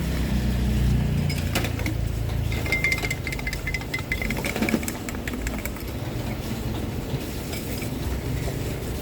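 Scattered clinks and light knocks of cups and utensils, over a low engine rumble that eases after the first couple of seconds.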